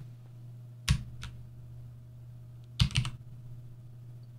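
Computer keyboard keys being struck in short bursts: a sharp clack about a second in, a lighter one just after, and a quick cluster of keystrokes near three seconds, over a steady low hum.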